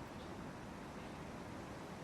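Steady wind rustling through fresh early-summer leaves and branches, a soft continuous rush mixed with the distant sound of the sea.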